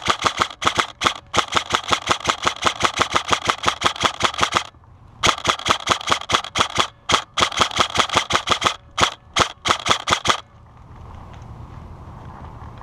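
Airsoft rifle firing on full auto: long rapid bursts with short gaps, then a few single shots, stopping about ten seconds in.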